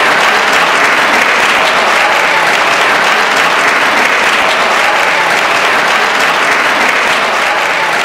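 Audience applauding: steady, dense clapping that eases slightly near the end.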